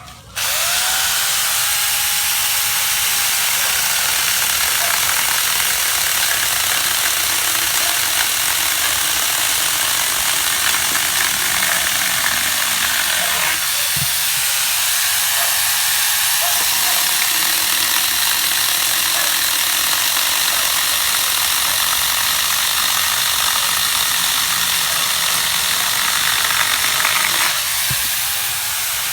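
Small chainsaw running and cutting through a mango tree, a loud steady rasp of the chain in the wood. It breaks off briefly about halfway and gets quieter near the end.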